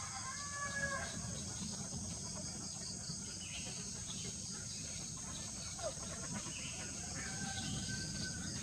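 Outdoor ambience dominated by a steady, high-pitched insect chorus of crickets or cicadas over a low rumble, with a few faint held calls near the start and again near the end.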